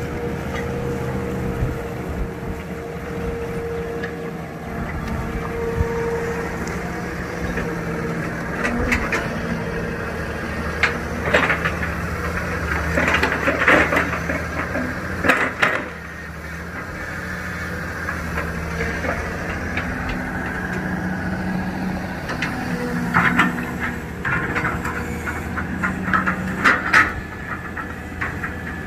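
Tracked excavator's diesel engine running steadily under work, with bursts of clanks and scrapes in the middle and again near the end.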